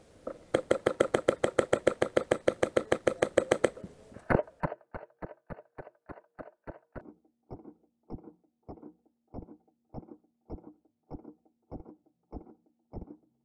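Airsoft gun firing: a rapid burst of about eight shots a second for several seconds, then a sharp loud shot and a run of evenly spaced shots that slows to about two a second.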